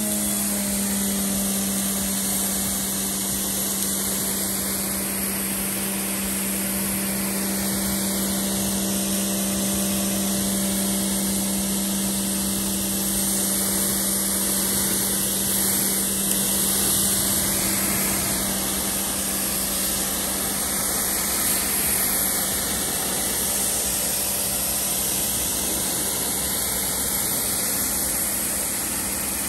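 Giraffe Tools Grandfalls electric pressure washer running steadily, its motor-driven pump giving a constant hum under the hiss of the water jet as it rinses soap foam off the car's panels.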